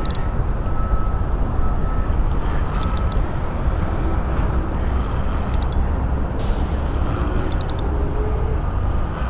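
Steady low rumble of road traffic, with a few short runs of faint rapid clicking.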